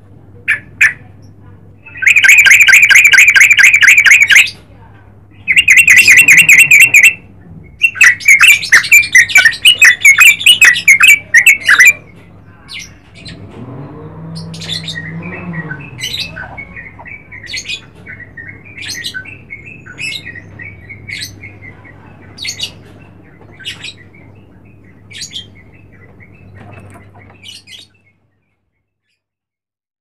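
Yellow-vented bulbul singing: three loud spells of rapid, fast-repeated notes in the first twelve seconds, then a quieter run of short notes spaced about evenly, a little over one a second, until the sound cuts off near the end.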